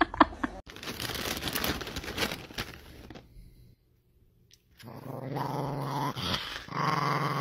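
Small dogs growling: a rough, noisy growl for the first few seconds, a short silent break, then a steadier low growl from a small Chihuahua-type dog baring its teeth.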